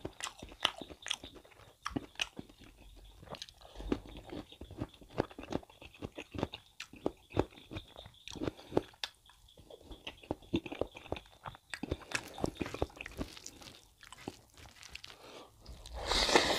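Close-miked chewing of beef curry and rice eaten by hand: a steady run of short wet mouth clicks, smacks and crunchy bites. A louder burst of mouth noise comes near the end as another handful goes into the mouth.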